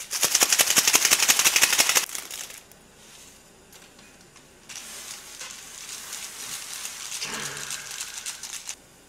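Plastic instant-ramen seasoning packets crinkling as they are handled and emptied into a pot. A fast, loud crackling rattle comes first for about two seconds, then after a pause a softer rustle from about five seconds in until shortly before the end.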